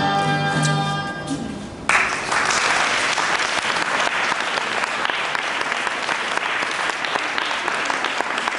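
Dance music fades out on a held chord, then about two seconds in an audience breaks into steady applause that carries on to the end.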